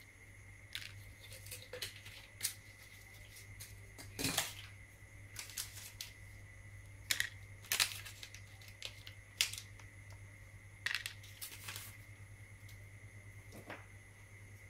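Small electronic parts (resistors and strips of pin headers) set down by hand on a plastic cutting mat: a string of light, irregular clicks and taps over a faint steady low hum.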